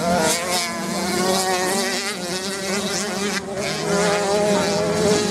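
Dirt bike engines buzzing, their pitch wavering up and down as the riders work the throttle on the sand.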